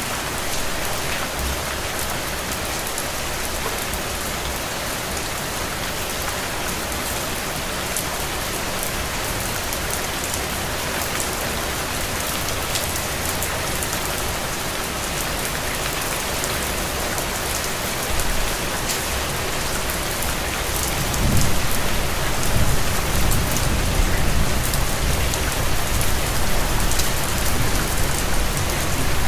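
Steady rain falling, an even hiss with fine patter of drops. About two-thirds of the way through, a low rumble comes in beneath it and carries on.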